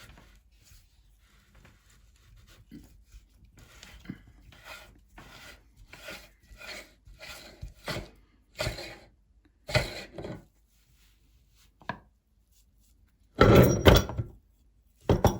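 Meat grinder crunching through frozen ice and lemon: a run of grinding scrapes about one and a half a second that grows louder, then two much louder crunching bursts near the end.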